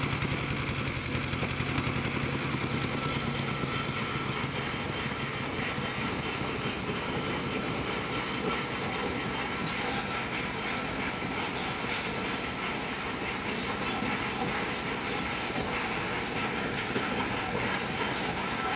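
Piling rig's engine running steadily with a continuous mechanical clatter.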